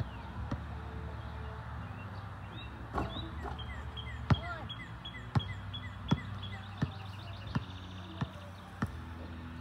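A basketball bouncing on an asphalt court, with a louder impact about four seconds in as the free-throw shot reaches the hoop, then a run of bounces about every 0.7 seconds. Birds chirp repeatedly throughout.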